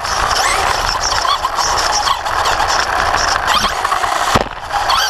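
Traxxas Slash 2WD RC short-course truck heard from an onboard camera while being driven hard: its electric motor and drivetrain whine, rising and falling with the throttle, over a steady rush of noise. A sharp knock comes about four seconds in, followed by a brief dip in the noise.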